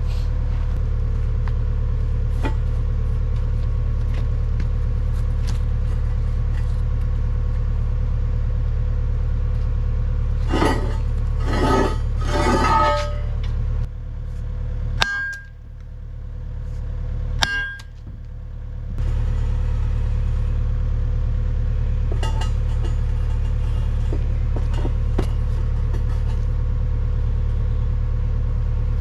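An engine running steadily with a low rumble. A few metallic clanks come about ten to thirteen seconds in, and the rumble briefly drops away for several seconds with two sharp clicks before it returns.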